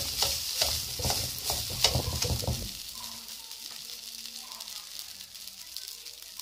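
Rice sizzling in hot oil in a metal wok, stirred and scraped with a metal ladle in quick repeated strokes that knock against the pan. The stirring stops under three seconds in, and the steady sizzle carries on alone.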